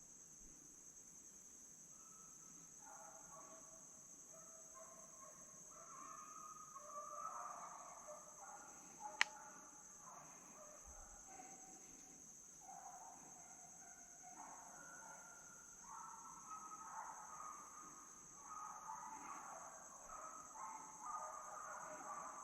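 Pack of deer hounds baying in the distance, several dogs overlapping in long drawn-out notes at different pitches, over a steady high drone of insects. One sharp click about nine seconds in.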